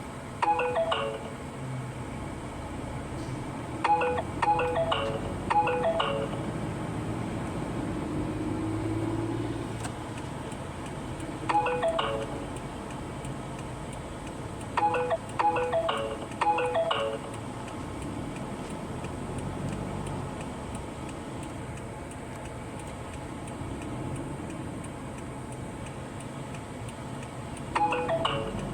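Short electronic alert chime, a quick falling run of tones, sounding about ten times in clusters of one to four, over a steady low hum.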